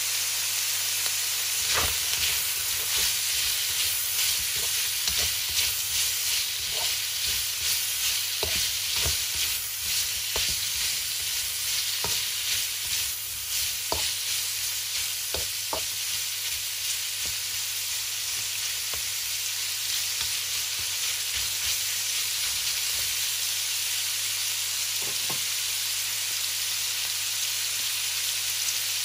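Pork belly sizzling as it fries in oil in a wok, its fat rendering out, with occasional clicks and scrapes of a spatula stirring it, mostly in the first half.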